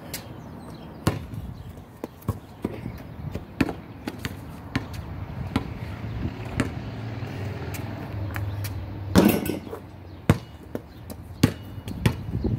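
A basketball bouncing, sharp thuds about once a second, with one louder, longer hit about nine seconds in.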